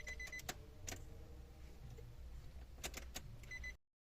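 A car's electronic warning chime beeps in short pulses at the start and again near the end, with sharp clicks and jingling like keys, over a low rumble.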